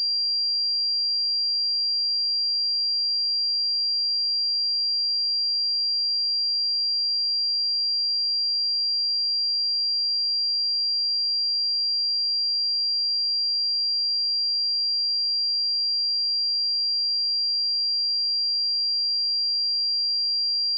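A pure 4751 Hz sine-wave test tone, one steady high-pitched note held unchanged throughout.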